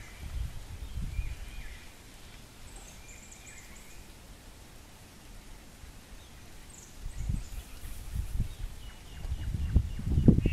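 Outdoor ambience: wind buffeting the microphone in gusts, strongest near the start and again in the last few seconds, with faint short bird chirps.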